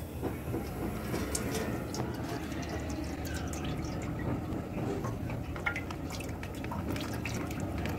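Cooking oil poured in a thin stream from a plastic packet into a large, empty aluminium pot, splashing on the pot's bottom.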